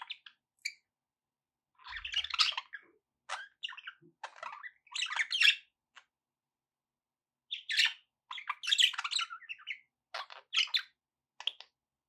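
Budgerigars chirping and chattering in short bursts of about a half to one second, with silent gaps between them.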